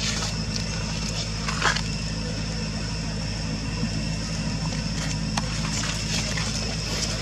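Dry leaf litter crackling and rustling in short bursts as a macaque moves over it, the loudest crunch about two seconds in. Under it runs a steady low hum and a high steady whine.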